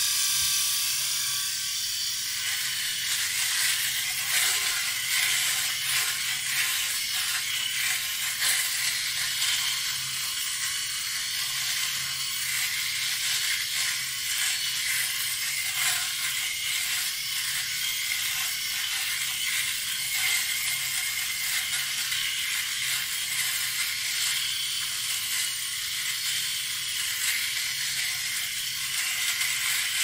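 Electric shaver running against a beard: a steady motor buzz with a dense crackle of whiskers being cut.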